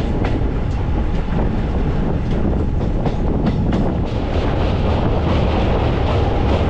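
Passenger train running at speed, heard from an open coach doorway: a steady heavy rumble with scattered wheel clicks over the rail joints. About four seconds in, the sound grows brighter as the train runs onto a steel truss bridge.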